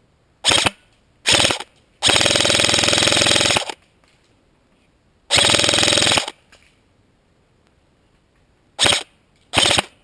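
Airsoft rifle firing full-auto in six bursts: two short ones, a long one of nearly two seconds, another of about a second, then two short ones near the end.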